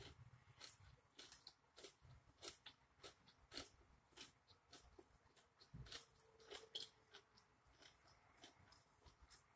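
Faint close-up chewing of grilled sirloin steak with the mouth closed: soft, irregular wet clicks and smacks of the mouth working through the meat.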